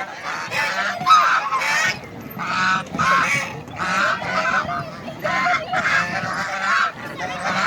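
White ducks quacking in quick succession, about two or three calls a second, some calls overlapping.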